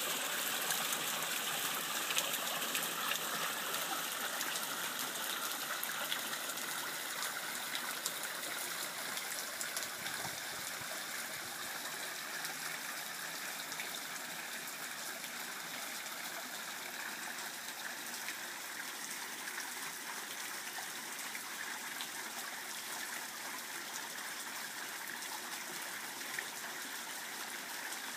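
Water running and splashing off a six-foot waterwheel: a steady rush with many small splashes and drips.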